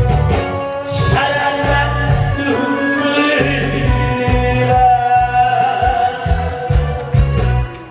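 A singer's voice with instrumental accompaniment, a song in progress; the music drops away near the end.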